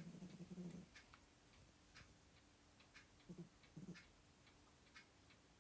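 A cat snoring softly: a low snore at the start, then two short snores about three and a half seconds in, over a clock ticking steadily about once a second.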